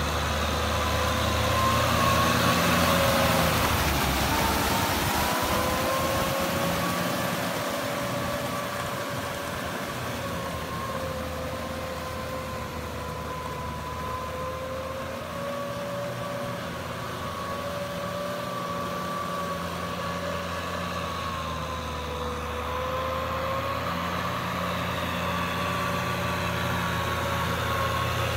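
Kubota M6040SU tractor's diesel engine running steadily as it works through a flooded rice paddy on steel cage wheels, with a whine that wavers slightly in pitch over the engine note. The sound is louder at the start and near the end as the tractor passes close, and softer in the middle as it works farther off.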